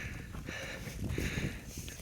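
A hiker breathing hard, in repeated noisy breaths about once a second, with footsteps scuffing underneath.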